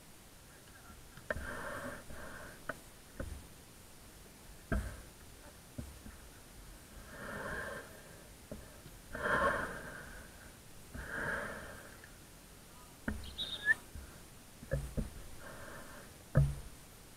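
Ambient sound of an amateur football match: distant shouts from players, about four calls each lasting around a second, with scattered sharp knocks in between.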